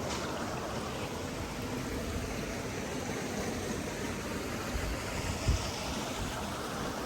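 Steady rushing noise with no distinct events, and a brief low thump about five and a half seconds in.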